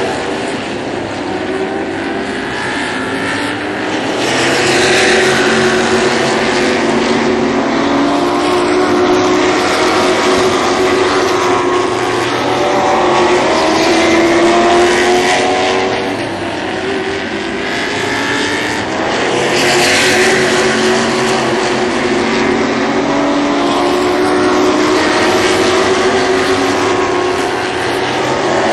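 A pack of Sportsman-division stock cars racing on a short oval, several V8 engine notes overlapping. They grow loud and fade again several times as the cars come past and head down the track.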